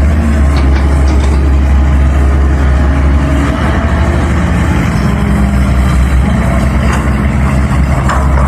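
Heavy diesel engine of a CAT 320 hydraulic excavator running steadily under load, a loud, continuous low rumble.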